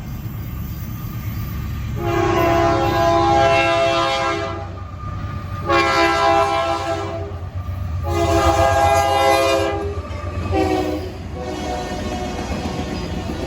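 Nathan K3LA three-chime locomotive air horn sounding a sequence of blasts: three long chords, a short one about ten and a half seconds in, then a quieter held chord. The low rumble of the passing train runs underneath.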